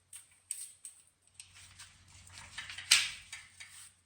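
A series of light clicks and knocks, with one louder knock about three seconds in, over a faint low hum.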